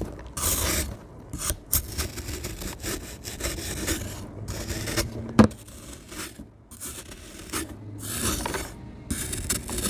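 Crunchy dried sand being crumbled, a gritty crunching and scraping in irregular bursts. A single sharp crack stands out about five and a half seconds in.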